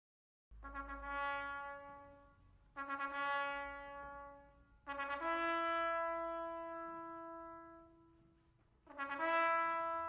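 Slow brass music: four long held notes, each swelling and fading, starting about half a second in; the third is held for about four seconds.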